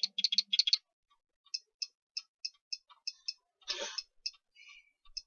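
Light, sharp clicking: a quick flurry of clicks, then single clicks at about three a second, with a brief rustle a little past the middle.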